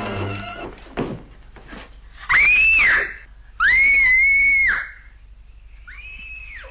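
A girl screaming in fright: two loud, long, high-pitched screams about two and a half and three and a half seconds in, then a shorter, fainter scream near the end.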